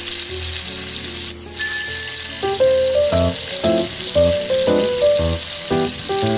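Pork ribs sizzling as they sauté over high heat in a wok, with a steady hiss that drops out briefly about a second and a half in. Background music with a steady beat plays over it, and the beat grows stronger from about two and a half seconds in.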